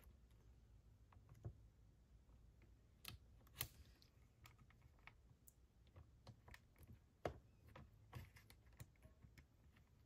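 Faint, irregular clicks and taps of hands fitting a rubber hose onto a chainsaw carburettor and handling the small plastic and metal parts around it. The sharpest clicks come about three and a half seconds in and again about seven seconds in.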